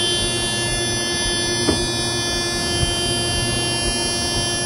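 Loud, steady electric buzzer or alarm tone: one unbroken buzz of a single pitch with many overtones, which cuts off shortly after.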